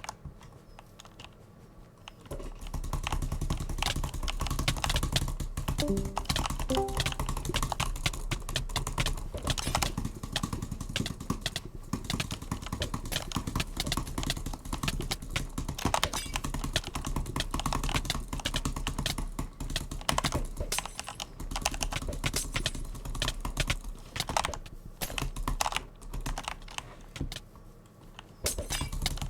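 A butterfly clicker fidget toy being flipped and worked, giving fast, irregular clicking and clacking that starts about two seconds in, with brief pauses near the end.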